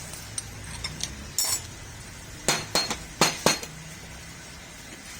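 Sharp metallic clinks and taps of tools or parts being handled: one strike, then a quick run of about five.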